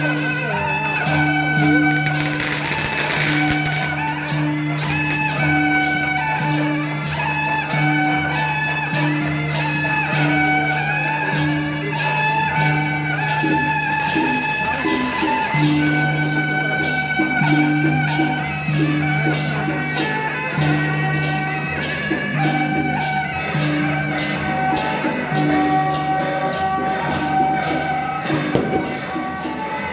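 Music: a melody line over a pulsing low drone, with quick, regular percussion strikes throughout.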